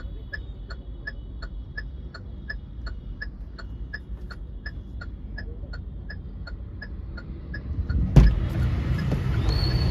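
A car's indicator ticking evenly, about three ticks a second, over a low engine idle, heard inside the cabin. About eight seconds in, one sudden loud thump, then louder road and traffic noise.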